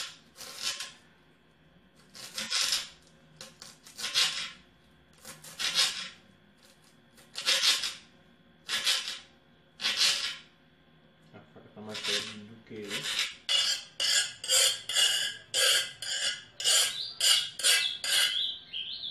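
Kitchen knife chopping fresh green herbs on a glass cutting board. Single strokes come a second or two apart, then about two-thirds in the chopping turns quick and regular, about two to three strokes a second.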